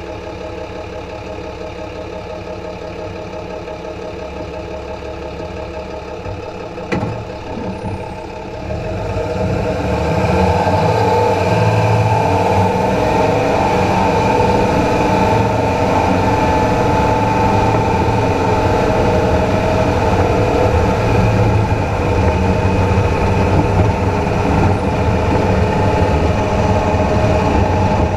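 Road and drivetrain noise from beneath a Dodge Ram pickup driving on pavement, with the front axle turning along with the wheels: a steady rumble with a steady whine over it. There is a single knock about seven seconds in, and it gets louder about nine seconds in.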